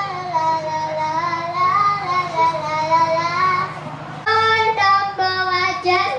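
A young girl sings a melody into a hand-held microphone over a backing track. A little after four seconds in, the sound changes abruptly to another child's singing over different accompaniment.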